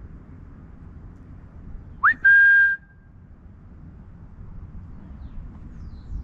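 A person whistling to call a cat: about two seconds in, a quick upward-sliding note, then one steady held note lasting about half a second.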